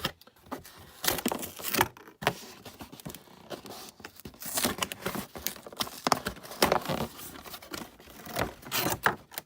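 A cardboard toy box being opened by hand: the packaging crinkles and tears in quick, irregular rustles, with scattered clicks and knocks.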